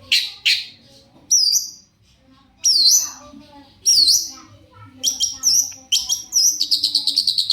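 Long-tailed shrike (cendet) singing: loud, sharp, sweeping calls, one about every second, breaking into a fast chattering run of short notes near the end.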